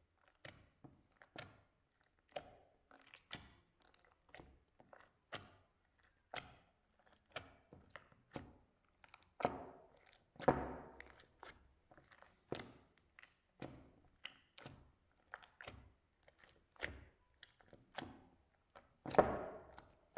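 Slime being pressed and squeezed by hand, giving a run of irregular sticky pops and clicks, with a few longer, louder squelches near the middle and near the end.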